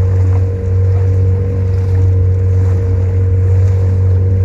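Small motorboat's engine running steadily under way, a constant low hum.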